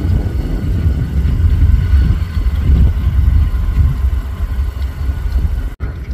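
Diesel locomotives idling close by: a deep, steady engine rumble. It breaks off abruptly for an instant near the end.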